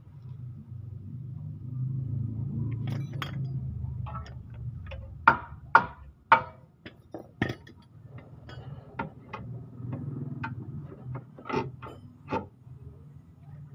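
Metal hand tools, a wrench and socket, clinking and knocking against a car's suspension arm and its bolts: a cluster of sharp clinks about five to seven seconds in and two more near the end, over a low rumble.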